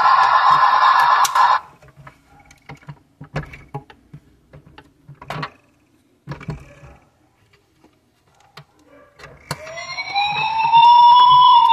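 A toy wrecker tow truck's electronic sound module plays until about a second and a half in and cuts off suddenly; then scattered plastic clicks and knocks as the toy is tilted and its rear underlift arm is worked. Near the end the toy's electronic siren starts, two wailing tones sweeping up and down.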